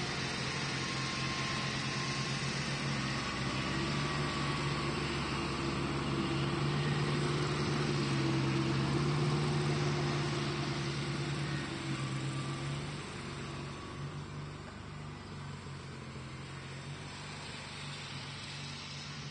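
An engine running steadily at idle, a low even hum that fades to a weaker level about two-thirds of the way through.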